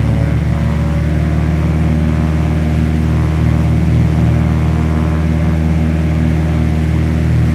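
The two turbocharged piston engines of a Cessna T337G Skymaster, front and rear, running in a steady drone. The low tones throb unevenly, a beat between the two engines turning at slightly different speeds.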